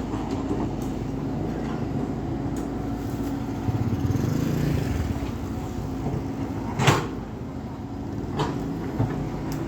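Komatsu PC78 excavator's diesel engine running steadily, working harder for a second or so near the middle. A loud sharp knock comes about seven seconds in, followed by a couple of lighter knocks.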